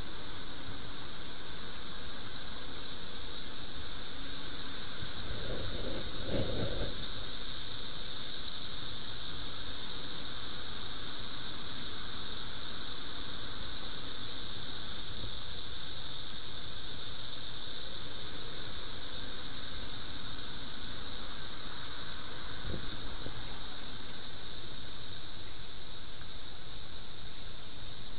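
Steady high hiss of a high-pressure sewer-jetting hose and nozzle working inside a drain pipe, with a brief lower swell about six seconds in.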